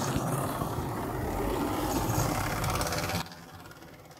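WD model steam locomotive running along OO gauge track: a steady whirr of its small motor mixed with wheel-on-rail noise. It cuts off suddenly about three seconds in.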